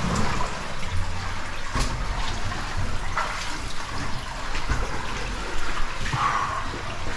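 Running water in a cave stream, a steady rushing splash, with a few short knocks about two and three seconds in.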